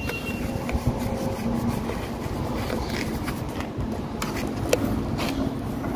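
Rusty ball-nut bearings of a 2013 Ford F-150 electric power steering rack turned by hand, giving a steady rough grinding with scattered clicks. The grinding comes from the bearings rusting after water got in past the rack boot.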